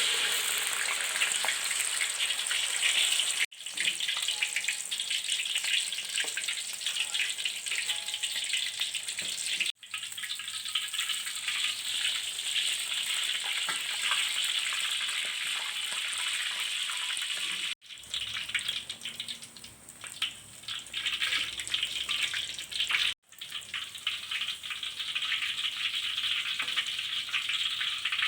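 Prawn fritter batter frying in hot oil: a steady sizzle with fine crackling, broken off abruptly for a moment four times.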